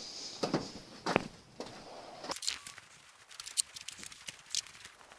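Light knocks and clicks of parts being handled: two fuller knocks in the first second, then a run of small sharp clicks from about two seconds in.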